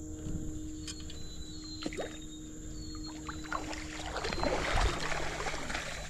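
Creek water splashing and sloshing as a hooked smallmouth bass fights on the line, the splashing growing busier and louder about four to five seconds in.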